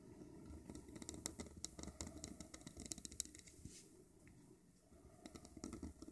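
Broad-edged metal dip-pen nib scratching on paper as letter strokes are drawn: a run of faint ticks and scrapes, a short pause, then more strokes near the end.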